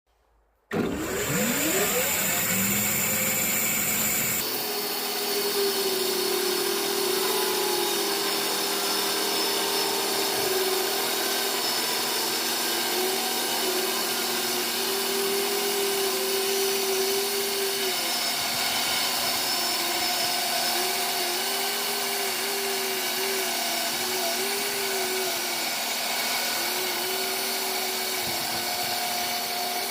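Band sawmill running and sawing through a larch log: a steady mechanical noise with a hum that wavers in pitch as the blade works through the wood. It starts abruptly just under a second in, rising in pitch over the first couple of seconds.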